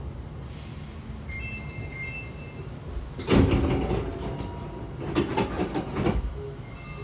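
Sliding doors of a Hankyu 8000-series commuter train closing: a loud thud as the door leaves meet, about three seconds in, then a cluster of knocks and clatter a couple of seconds later.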